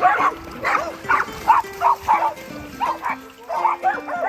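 Dog barking repeatedly, about two barks a second, over background music with a slow stepping melody.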